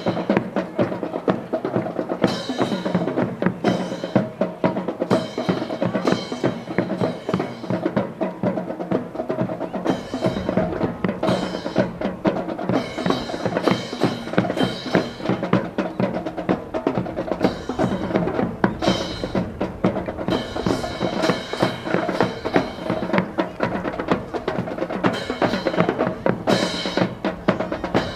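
Music led by marching drums: a fast snare-drum cadence with rolls and bass-drum beats, over steady held tones.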